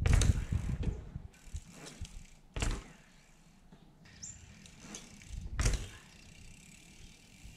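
A bicycle landing bunny hops on the road, with a sudden thud three times: near the start (the loudest), about two and a half seconds in, and about five and a half seconds in.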